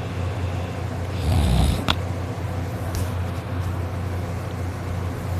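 A sleeping boy snoring loudly, with one snore about a second and a half in, over a steady low hum.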